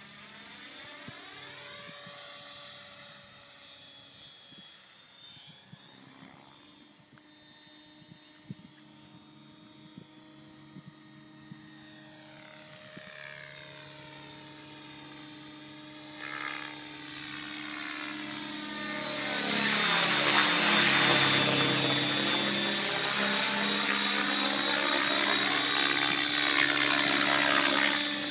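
Align T-Rex 700 electric RC helicopter in flight: the whine of its main rotor and electric motor sweeps down and up in pitch as it manoeuvres. It is faint at first and grows much louder about two-thirds of the way through as it comes in close.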